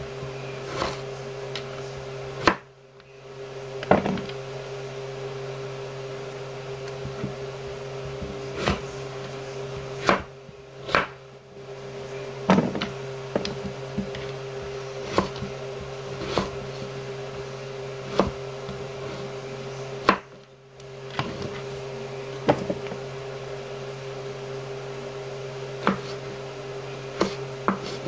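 Knife striking a wooden cutting board in single irregular cuts, one every second or two, while vegetables are chopped by hand. Under it runs a steady low appliance hum.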